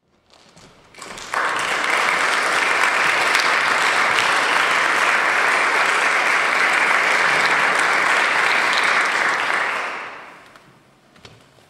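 Audience applauding, starting sharply about a second in, holding steady, then dying away near the end.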